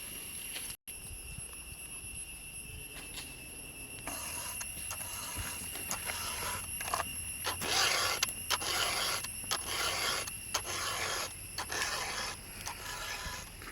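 Rhythmic scraping strokes of a saw cutting into anjili (wild jack) wood, beginning about four seconds in, over a steady high-pitched tone.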